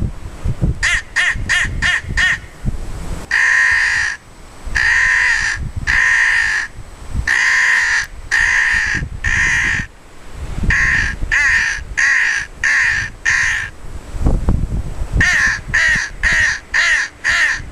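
Lohman crow call, a wooden call with a plastic reed, blown in loud runs of caws imitating an American crow: a quick series of short caws, then longer drawn-out caws, then more quick runs.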